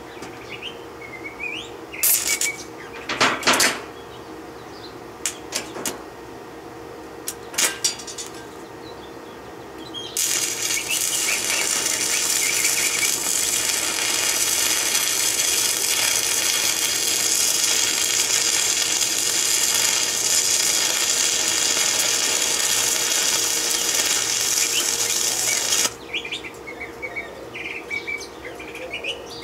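Stick (arc) welder burning an electrode on steel: after a few short sharp crackles in the first several seconds, a steady crackling, sizzling arc runs for about sixteen seconds and cuts off suddenly near the end. Birds chirp faintly behind it.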